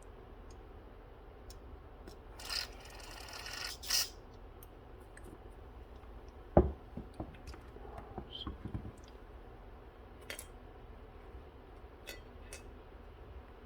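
Aerosol carb cleaner sprayed into a small-engine carburetor body, a hiss of about a second and a half, then a sharp knock and light clicks and rubbing as parts are handled.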